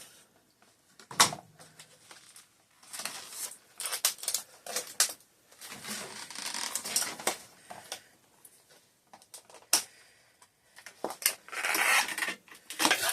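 Doll box packaging being cut and pulled apart by hand: scattered sharp clicks and snaps between spells of crinkly plastic and cardboard rustling.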